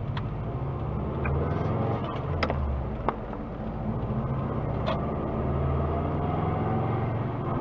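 Subaru Impreza WRX (GDA) driving, heard from inside the cabin through a dash camera: engine and drivetrain running with a grinding 'gā-gā' noise from the transmission. The noise comes on engine braking and throttle lift-off since a clutch swap to a Cusco uprated clutch. Its cause is unknown, and the owner suspects a flywheel fitted without resurfacing.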